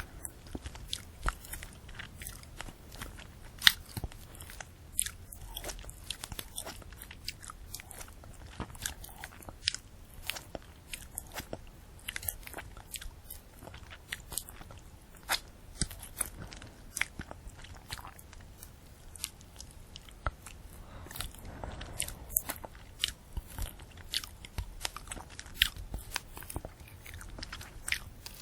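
Close-miked biting and chewing of a candy apple: the hard red sugar shell cracks and crunches and the apple crunches underneath, in a steady run of sharp irregular cracks, a few of them much louder.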